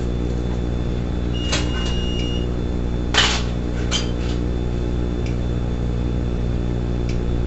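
Steady electrical hum in a security camera's audio. A single held electronic beep comes about one and a half seconds in, and a short clatter a little after three seconds, amid a few faint clicks.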